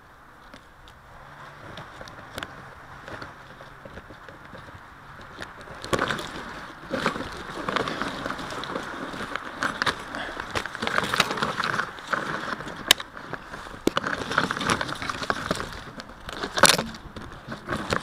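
Leaves and twigs rustling and crackling against a quadcopter's onboard camera as the crashed craft is jostled in the tree branches. Faint at first, louder and busier with sharp cracks from about six seconds in.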